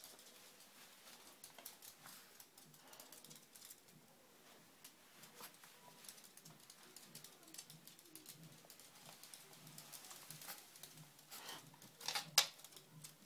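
Faint scattered clicking and rustling of dogs moving about: a chihuahua puppy on a fabric dog bed and a larger dog's claws and paws beside it. A louder cluster of clicks comes near the end.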